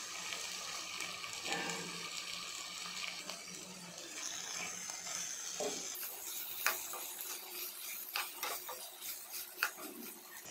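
Metal spoon stirring and scraping chopped boiled potatoes in a pan over a faint frying sizzle. In the second half the spoon clicks and taps sharply against the pan several times.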